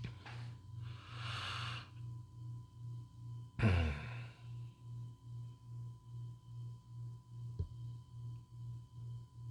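A person breathing: a long breathy exhale about a second in, then a louder short sigh about three and a half seconds in. Underneath runs a low hum that pulses about twice a second, and there is a faint click near the end.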